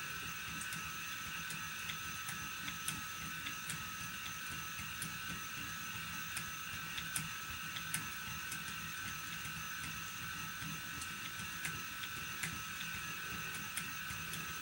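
Phoenix double-drive electric spinning wheel running at steady speed, flyer and bobbin turning: an even motor whine made of several steady tones over a low hum, with faint scattered ticks.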